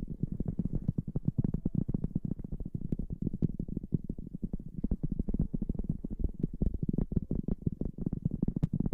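Muffled, close-microphone ASMR rubbing and scrubbing: a dense, fast stream of soft low crackles and thumps that keeps going without a break.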